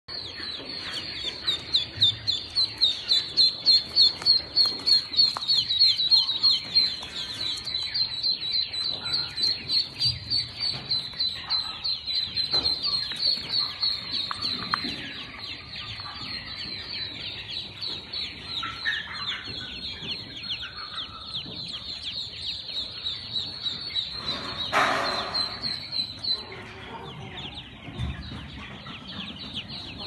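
A crowded brood of white Pekin ducklings peeping without pause: a dense chorus of short, high, falling calls, loudest in the first few seconds. There is one brief louder noise near the end.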